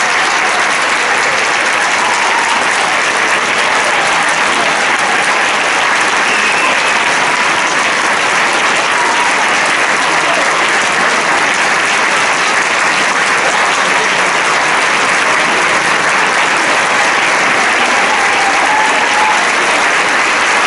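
An audience applauding at length: dense, steady clapping from many hands that never lets up.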